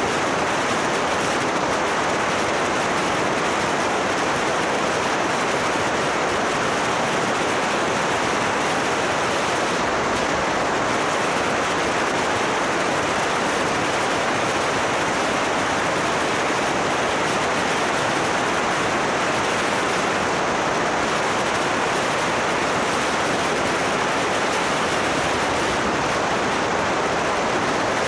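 Steady rushing wind noise on the microphone of a camera mounted on a moving motorcycle, with no distinct engine note standing out.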